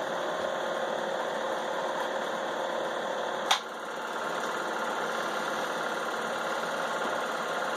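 Film projector running with a steady mechanical whirr, with one sharp click about three and a half seconds in.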